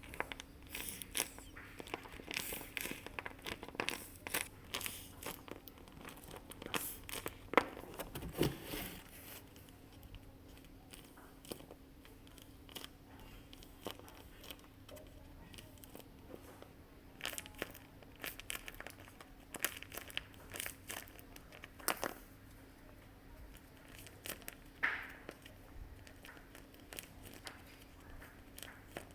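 Paper and tape crinkling and rustling in irregular bursts as paper squishies and their packing are handled, with a few sharper crackles.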